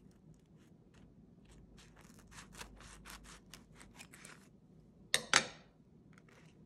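Kitchen scissors snipping through a toasted sandwich in a quick run of short snips, about four a second. About five seconds in come two much louder sharp clicks.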